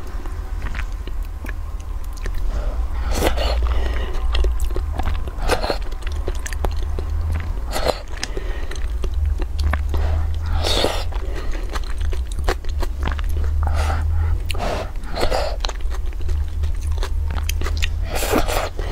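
Close-miked eating of soft tofu off a wooden spoon: wet mouth smacks, slurps and chewing that recur every second or two, over a steady low hum.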